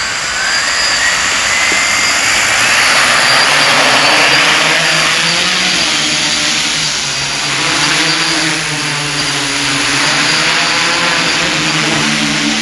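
Electric quadcopter's motors and propellers whirring loudly as it lifts off and flies: a whine rises in pitch over the first couple of seconds, then holds steady under a dense rushing noise.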